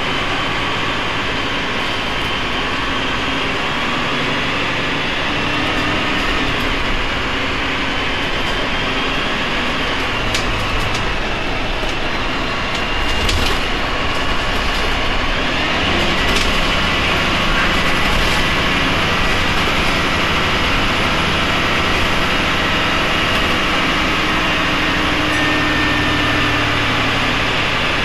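Cummins ISMe-335E-30 inline-six diesel engine of a Transbus Trident III bus running as the bus drives along, its note shifting with road speed, heard from inside the bus.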